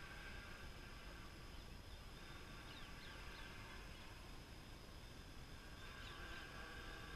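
Faint hum of a multicopter drone's propellers as it flies in, with a few short falling bird chirps over it about three seconds in and again near the end.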